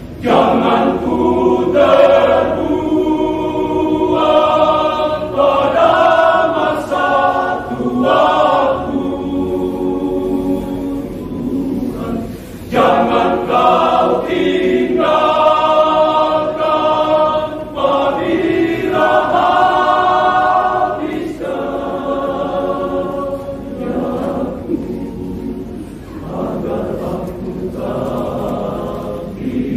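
Male choir singing in parts. There is a short break about twelve seconds in, then the voices come back in louder.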